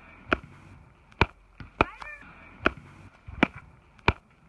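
Six sharp leather smacks, a little under a second apart: a ball or fist pounded repeatedly into the pocket of a Rawlings leather baseball glove.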